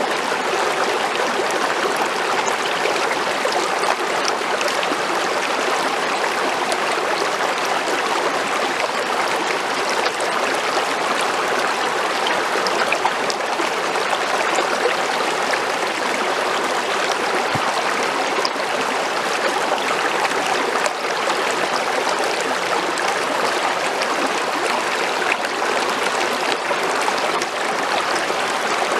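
Creek water flowing over rocks, a steady rushing and gurgling.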